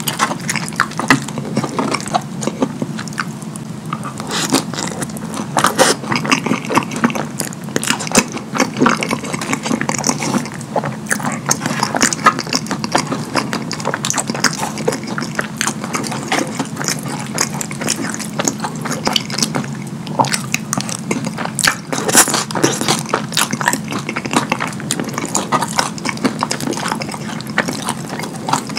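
Wet, sticky squelching and clicking of sauce-covered cheese fries being stirred and lifted with a metal fork, close to the microphone, in a dense run of small crackles and smacks.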